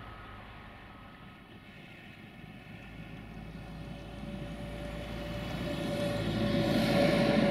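Engine of an approaching rail vehicle, a steady mechanical hum with one held tone that grows steadily louder through the second half.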